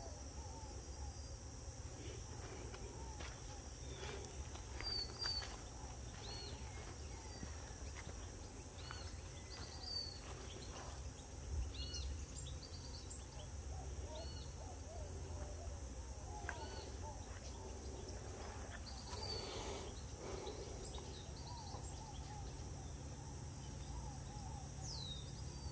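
Outdoor ambience of birds chirping and calling again and again over a steady, high insect drone, with a low rumble underneath.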